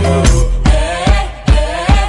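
Pop music soundtrack: a sung vocal line over a steady kick-drum beat that comes in a little under a second in.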